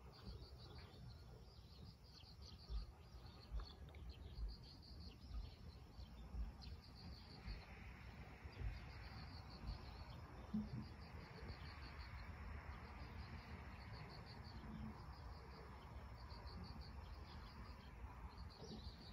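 Faint outdoor ambience: a thin, high chirping repeating in short pulsed trains throughout, with soft low bumps on the microphone during the first half or so.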